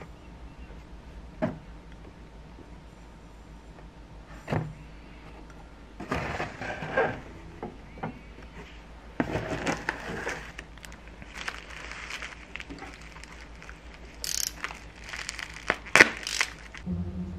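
Glencairn crystal whisky glasses being unpacked: plastic wrapping crinkles in several stretches, with a few sharp taps as glass is set down on a wooden table or knocks against the cardboard box.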